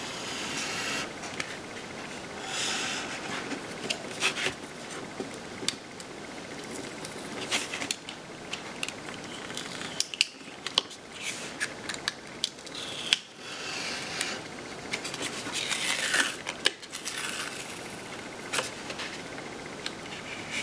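A weeding hook scratching at and peeling cut pieces of an infusible ink transfer sheet off a plastic cutting mat: scratchy, rustling stretches of about a second, a few of them, among many small clicks and taps.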